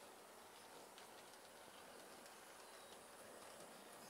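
Near silence: faint room hiss with a few faint clicks.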